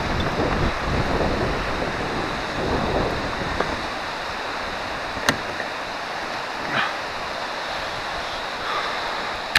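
Wind blowing across the microphone over the wash of river water around a small boat, the low rumble easing after about three seconds. A single sharp click about five seconds in.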